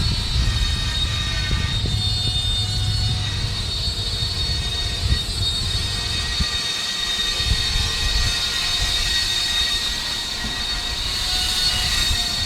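Road traffic rumbling steadily, with a layer of steady high thin tones above it that grows louder near the end.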